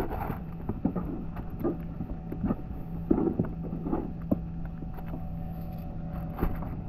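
Wind on the microphone over a steady low hum, with a string of short, sharp knocks and scrapes as a hooked fish is brought in at the side of a kayak.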